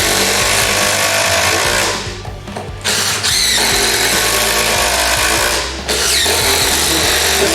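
Cordless impact drivers, a HART brushless and a DeWALT DCF887, hammering away as they drive fasteners in a race. The hammering breaks off briefly about two seconds in and again near six seconds.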